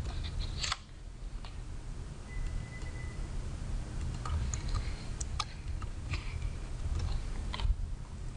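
Scattered light computer keyboard keystrokes and mouse clicks over a steady low hum, with a faint brief tone a little over two seconds in.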